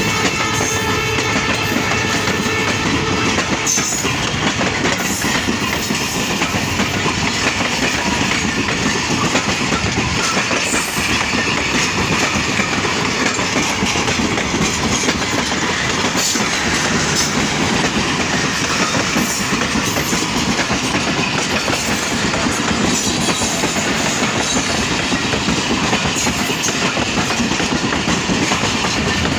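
Passenger coaches of an express train rolling past at close range: a steady rolling rumble with wheels clattering over the rail joints. A held tone sounds over it and stops about three and a half seconds in.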